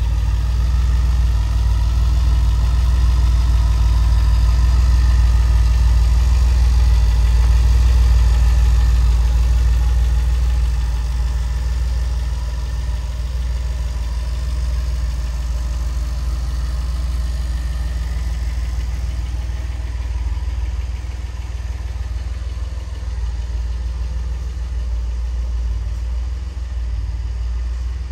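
1981 DeLorean's fuel-injected 2.85-litre PRV V6 idling steadily, a low drone that is loudest for the first ten seconds or so and then somewhat quieter.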